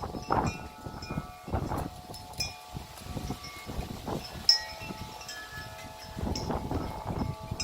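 Wind chimes ringing and clanking, struck again and again by strong gusts, over the rush of the wind buffeting the microphone in surges. A sharp click stands out about halfway through.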